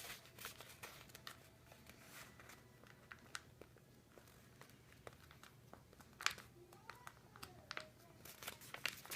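Sheet of paper being folded and creased by hand: faint, scattered rustles and crackles of the paper, with a few sharper ones about six seconds in.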